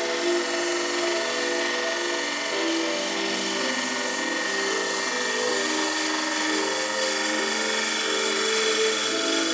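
Wood lathe spinning a spindle blank while a turning tool cuts into it, giving a steady hiss of cutting. A melody of held notes, background music, runs over it throughout.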